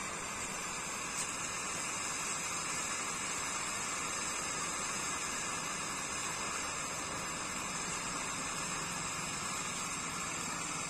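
A 'handful jhadi' ground fountain firework spraying sparks with a steady, even hiss.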